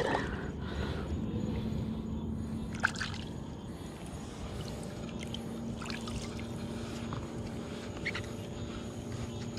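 A freshly landed largemouth bass being handled on a wet, grassy bank: a few small clicks and rustles as it is gripped by the lip and lifted, over a steady faint hum.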